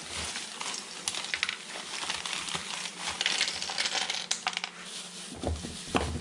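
Small metal crimp terminals for 10 mm² cable clinking and rattling as a handful is rummaged through, a dense run of sharp clicks, busiest in the middle.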